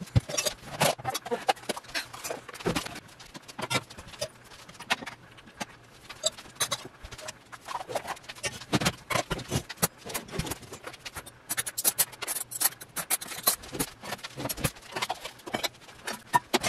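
Clean dishes and cutlery clinking and clattering as a dishwasher is unloaded and put away, with kitchen drawers and cupboard doors knocking. Many sharp knocks in quick, irregular succession.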